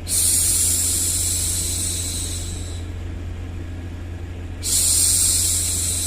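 A woman hushing a baby with a long 'shhh', twice: the first starts at once and fades over nearly three seconds, the second begins a little before the end. A steady low rumble of noise runs beneath both.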